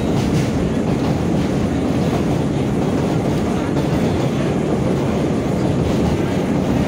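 Vintage BMT AB Standard subway car running along the line, heard from inside the car: a steady rumble of wheels on rail and car-body rattle, with the odd clack over the rail joints.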